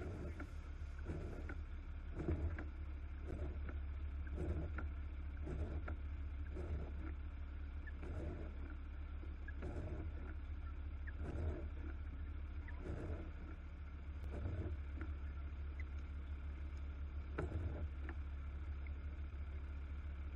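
A steady low engine rumble with a soft pulse about once a second.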